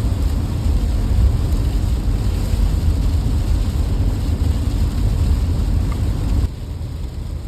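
Low, steady rumble of a van on the road, heard from inside the cabin. It drops suddenly to a quieter rumble about six and a half seconds in.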